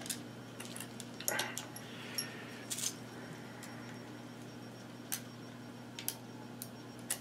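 Scattered light clicks and taps of small tools and plastic parts being handled on an opened portable radio, over a faint steady hum.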